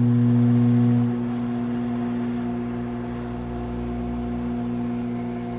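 Microwave oven running, a steady electrical hum, somewhat quieter after about a second.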